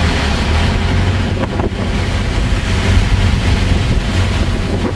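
Steady rumble of a car's engine and road noise heard from inside the moving car, with wind buffeting the microphone.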